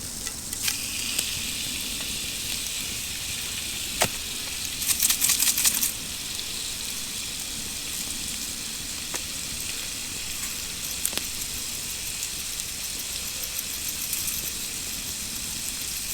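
Food sizzling over a campfire: a steady hiss that starts under a second in, with a sharp click about four seconds in and a burst of spitting pops just after it.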